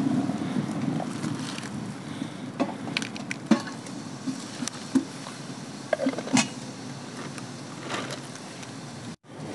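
Hot water pouring from a kettle into a glass teapot, ending about a second in, followed by a few scattered sharp clinks and knocks as the glass teapot is handled and lifted off a wooden stump.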